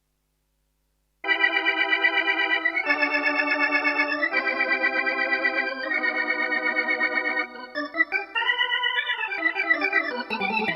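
Roland Fantom-X6 synthesizer playing an organ sound: held chords with a quick wavering, changing about every second and a half, then a run of notes sliding down near the end. It starts about a second in, after a moment of silence.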